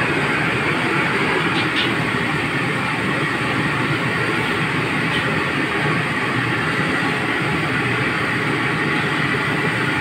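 Steady, loud rushing noise, with a few faint clicks of steel tongs on a steel tray.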